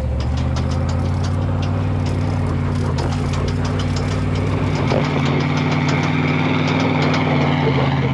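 Chevrolet Tahoe's engine running under load up a loose dirt hill, with a rapid run of sharp clinks from the front end as the spinning wheels hop. The Tahoe has an open front differential and no locker, so the wheels spin out of control and the suspension bounces.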